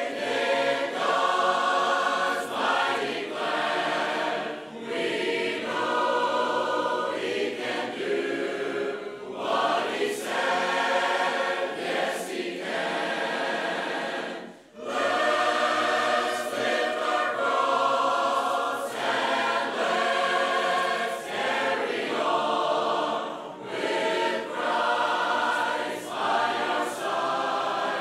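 A church congregation of men and women singing a hymn together a cappella, with no instruments. The singing goes in phrases with short breaths between them, and there is a brief pause about halfway through.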